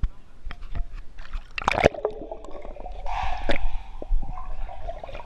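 Pool water splashing about two seconds in, then muffled, wavering gurgling as the GoPro goes under the surface.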